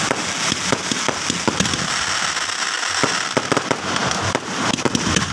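Aerial fireworks going off: a dense, uneven run of sharp pops and crackles from bursting shells and crackling stars.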